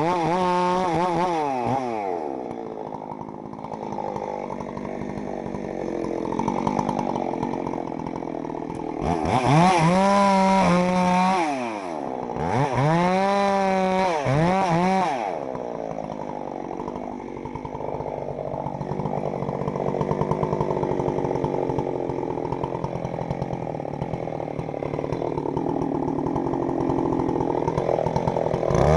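Chainsaw running under varying throttle, revved up and back down twice around the middle, running lower and unevenly the rest of the time.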